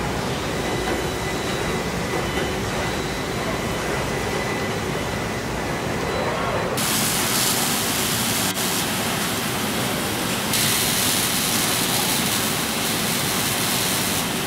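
Steady machinery noise of a robotic car-body welding line, with a faint steady whine. About seven seconds in, a loud steady hiss joins it.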